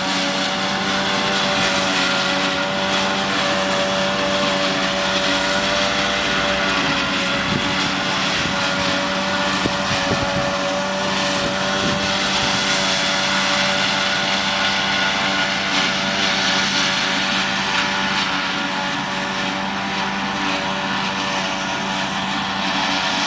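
Tractor engine under load driving a tractor-drawn single-row forage harvester as it chops standing maize for silage: a loud, steady drone at even pitch with a noisy rush on top.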